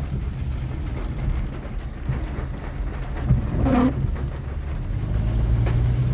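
Inside a car driving slowly through heavy rain: a steady low engine and road rumble, with rain on the car's body and windscreen. A short voice-like sound comes in briefly near the middle.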